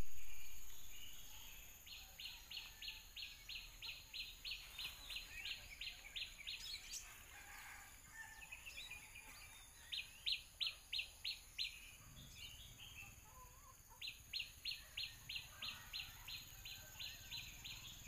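A bird calling in runs of short, high repeated notes, about three or four a second, each run lasting a few seconds, with pauses between. The calls are faint against a steady high hiss; a louder sound at the very start fades away over the first two seconds.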